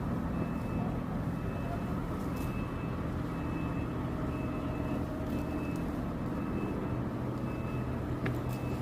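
A motor vehicle's engine running steadily with a low hum, and a faint high beep repeating a little under twice a second.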